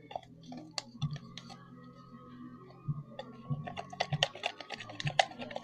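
Irregular sharp clicks over a steady low hum. They are sparse at first and come thick and fast from about three and a half seconds in.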